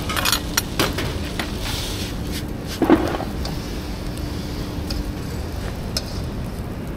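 Lumps of charcoal and a metal pail clinking and knocking at a charcoal stove: a few sharp clinks in the first second and one louder knock about three seconds in, over a steady low hum.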